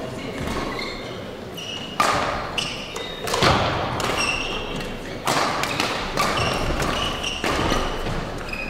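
Badminton rally: sharp racket strikes on the shuttlecock every second or two, echoing in a large hall, with short squeaks of shoes on the court floor between them.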